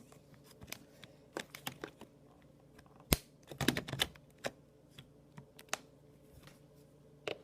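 Irregular plastic clicks and knocks as a late 2006 MacBook's battery is pushed and worked into its bay, which it resists going back into. There is one sharp click about three seconds in, a quick cluster of clicks just after, and a last click near the end.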